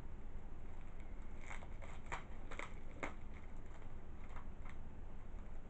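Plastic shrink wrap crackling and crinkling as it is torn and peeled off a Blu-ray/DVD case: a quick cluster of sharp crinkles in the middle, then two more a little later.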